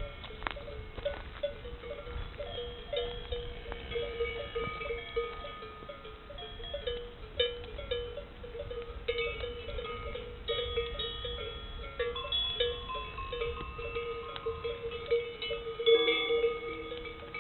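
Bells worn by a herd of cattle clanking unevenly and without pause, their overlapping ringing pitches sounding like gamelan gongs and bowls. A louder flurry of clanks comes near the end.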